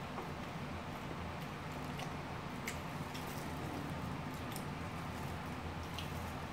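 Faint eating sounds: soft chewing and mouth noises with a few small, sharp clicks scattered through, over a steady low hum.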